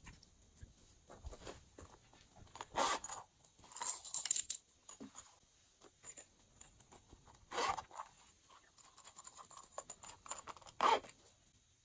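Hands handling plastic slime containers and adding small plastic charms to glass trays of slime: a few separate short crinkles, scrapes and taps, the loudest around four seconds in and again near the end.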